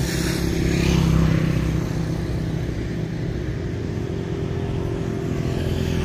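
An engine running steadily with an even, low hum.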